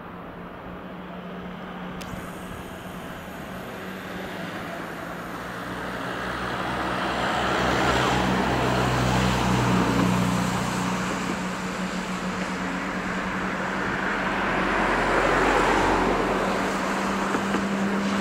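Road traffic passing over a viaduct, swelling twice as vehicles go by, over a steady low hum, while an electric locomotive-hauled InterCity train approaches in the distance.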